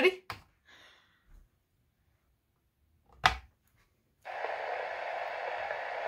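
A single sharp click about three seconds in, then, about a second later, a steady hiss from the Signal One voice smoke detector's speaker as playback of its custom recorded evacuation message begins.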